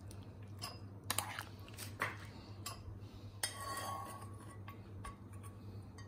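Metal spoon clinking and scraping against a nonstick saucepan and ceramic bowls as syrupy candied watermelon-rind cubes are scooped out: a few light, separate clicks, with a longer scrape a little after the middle. A steady low hum underneath.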